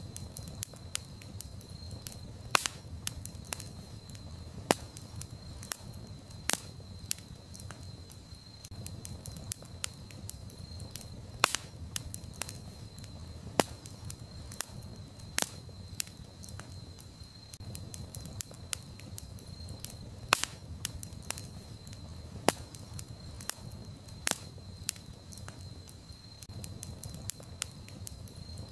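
Campfire burning, with irregular sharp crackles and pops from the burning wood over a low steady rumble of the flames. A thin high steady tone runs underneath.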